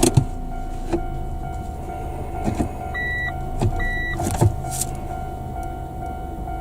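Car driving, heard from inside: steady road and engine noise with a constant hum and a few light knocks. About three seconds in come two short, high electronic beeps, half a second apart.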